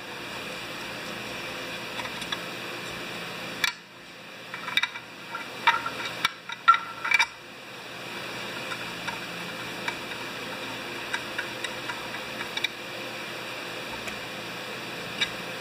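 Screwdriver driving the screws that hold the fuel tank onto a Homelite XP 1020 chainsaw housing: scattered light clicks and scrapes, busiest about four to seven seconds in, over a steady background hum.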